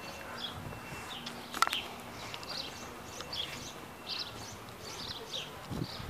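Small birds chirping repeatedly in short, high notes, with a single sharp click about a second and a half in.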